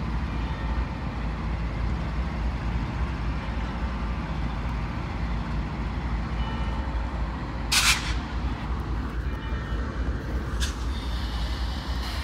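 Union Pacific diesel locomotives running with a steady low rumble. Two short hissing bursts come through, a louder one about eight seconds in and a shorter one a little under three seconds later.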